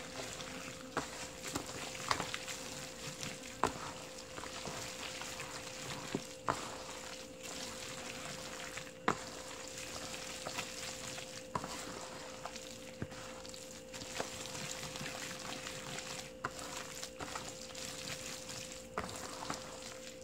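Gloved hand mixing wet kimchi seasoning paste (red pepper flakes, glutinous rice porridge, sliced radish, onion and scallions) in a large plastic bowl: continuous wet squishing and rustling, with scattered sharp clicks.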